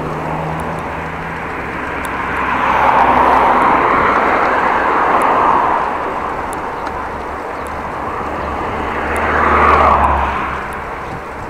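Two road vehicles passing, their tyre and engine noise swelling and fading: the first from about two seconds in for a few seconds, the second shorter near the end, over a steady low rumble of riding.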